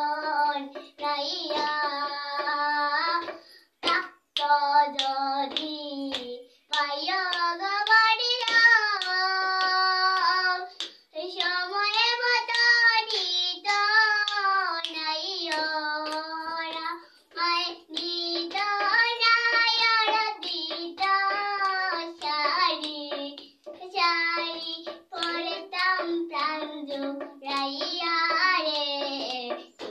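A young girl singing a song solo and unaccompanied, in sustained phrases of a few seconds with short breaks for breath between them.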